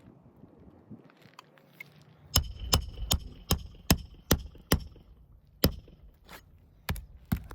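Hammer driving roofing nails into a temporary asphalt shingle. After a quiet start there is a quick run of about seven sharp strikes roughly two and a half a second, each with a slight metallic ring, then a few slower strikes.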